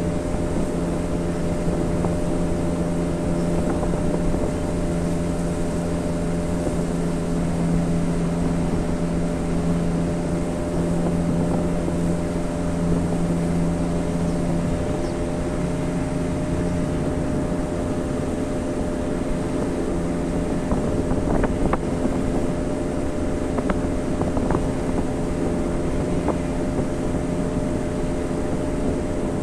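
Motor of a canoe running steadily as it travels upriver, a constant hum with a rush of water and wind; the lowest tone of the hum drops away about halfway through.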